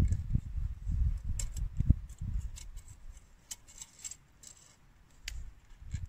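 Wood campfire crackling with irregular sharp pops and clicks. Wind rumbles on the microphone in gusts, dying down after about two and a half seconds.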